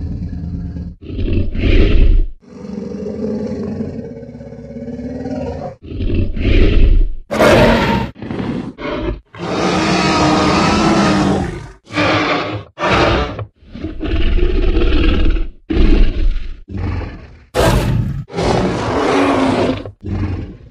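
Film sound effects of a dinosaur roaring and growling: a string of about a dozen separate roars and growls, each cut off sharply, most under a second and one long roar of about two seconds near the middle.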